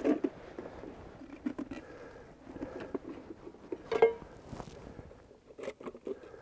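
Handling noises in snow: rustling and soft crunching as a small metal cooking pot is moved about, with a sharp metallic clink of the pot about four seconds in that rings briefly.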